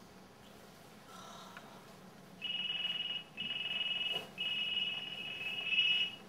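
Mobile phone ringing: a high electronic beeping tone in three bursts, the last about twice as long as the first two.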